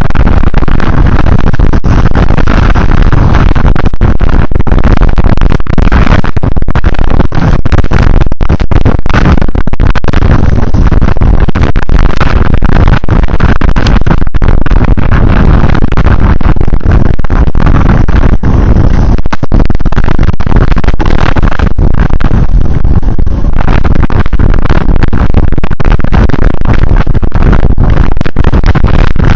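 Loud, constant rushing noise of wind and rain on a moving camera's microphone, strongest in the low end, distorted and clipping throughout.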